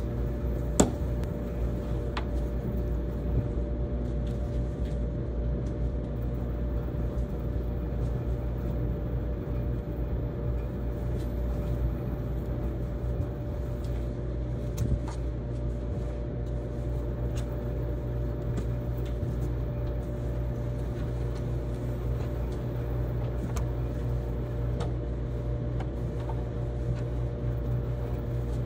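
Steady low hum of running commercial tumble dryers, with a few brief clicks over it.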